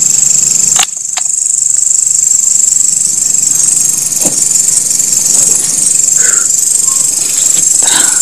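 Loud, steady chorus of night insects, high-pitched and unbroken, with a faint low hum under it. A few short knocks and rustles, about a second in, about four seconds in and near the end, come from someone pushing through dry corn stalks.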